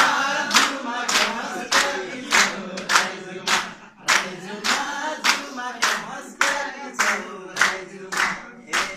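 Hands clapping in a steady rhythm, about two claps a second, keeping time to voices singing along.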